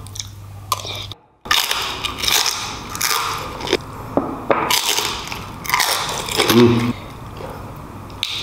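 Close-miked mukbang eating: a person biting into and chewing crunchy food, with crackly crunches. The sound drops out briefly about a second in.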